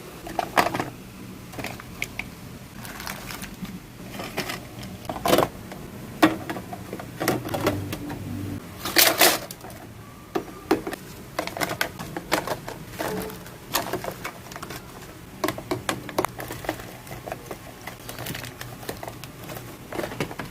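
Irregular clatter of plastic containers and food items being set down, slid and knocked against shelves while a fridge is organized, over a steady low hum.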